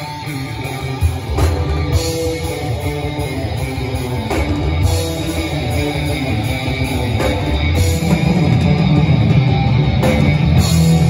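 Live rock band playing electric guitars over a drum kit, heard from the crowd in a marquee; it gets louder about eight seconds in.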